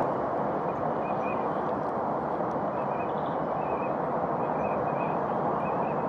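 A steady, even rushing background noise with no rhythm to it. Over it, faint short high bird calls repeat every half second or so.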